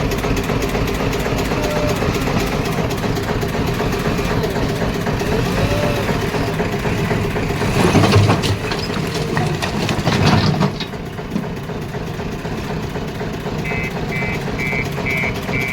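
JCB 3DX backhoe loader's diesel engine running steadily, with two louder swells about eight and ten seconds in as the machine works. Short high beeps, about two a second, start near the end.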